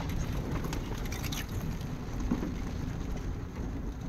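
Vehicle driving slowly over a rough dirt track, heard from inside the cab: a steady low engine and tyre rumble, with a few light knocks and rattles in the first second and a half.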